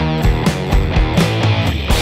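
Rock music with guitar and a steady drum beat, about two beats a second.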